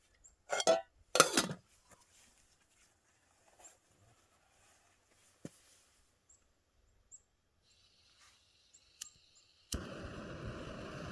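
Two clattering knocks of cookware being handled near the start. Near the end a faint hiss of gas and a click, then a pocket rocket canister stove lights with a pop and settles into a steady burner roar.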